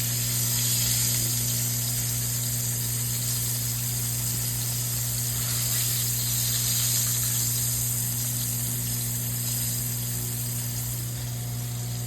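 Food frying in oil in a pan, a steady sizzling hiss, over a constant low hum.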